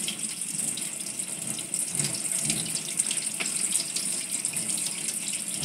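Water running steadily from a handheld salon shampoo-bowl sprayer, spraying through wet locs and splashing into the basin as shampoo is rinsed out.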